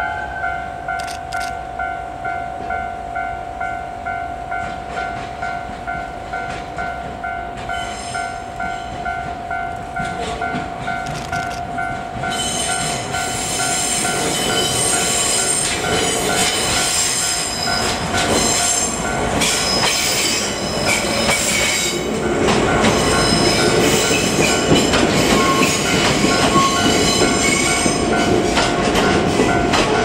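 Level-crossing warning bell ringing in an even pulsing beat, about two strokes a second, throughout. From about halfway the noise of an approaching train builds: a DE10 diesel locomotive hauling passenger cars, growing louder with wheel and rail noise in the last third as it passes close by.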